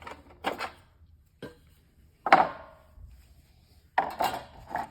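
A flat screwdriver prising at the cap on the back of a shower head: scraping and clicking, with one sharp snap about two seconds in.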